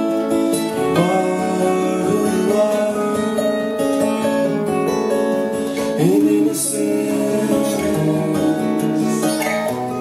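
Two acoustic guitars, a Taylor and a Guild, strummed and picked together in a gentle song, with a singing voice joining in.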